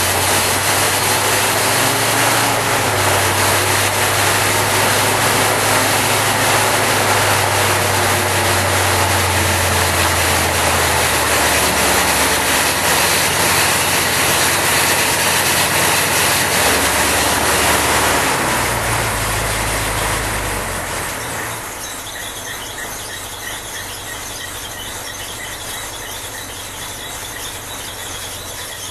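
Rebuilt 1927 Cadillac 314 V8 engine running loudly and steadily. About two-thirds of the way through, its sound drops to a noticeably quieter level and stays there.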